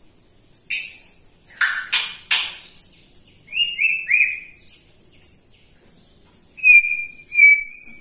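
African grey parrot calling: a string of raspy, noisy calls in the first few seconds, three short whistles around the middle, then two loud, clear whistles near the end.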